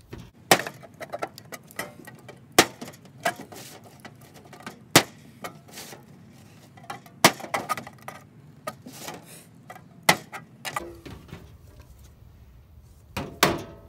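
Knife point punching vent holes through the thin metal lid of a popcorn tin being made into a char tin: a series of sharp clicks and pops, the loudest every two to three seconds with lighter scrapes and taps between.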